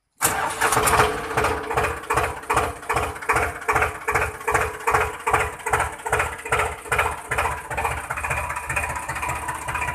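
Tractor engine running with a rhythmic diesel chug of about three to four beats a second over a steady hum, starting suddenly and quickening a little near the end.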